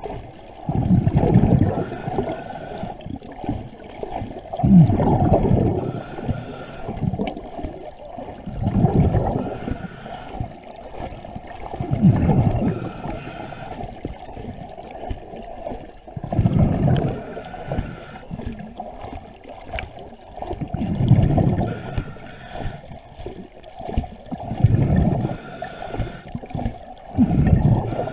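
A diver breathing through a regulator underwater. Exhaled bubbles burst out in a low gurgling rush about every four seconds, with a faint hiss of inhalation between them.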